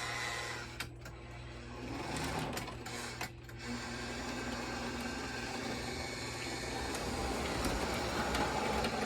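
Lionel postwar O-gauge train creeping along the track: the US Navy ALCO diesel's small electric motor whirring steadily with wheels rolling on the rails and a low hum.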